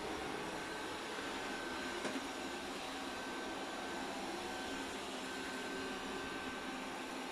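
Polaris PVCR 3300 IQ Home Aqua robot vacuum running: a steady whir of its suction fan and brushes with a thin steady whine over it, and a brief knock about two seconds in.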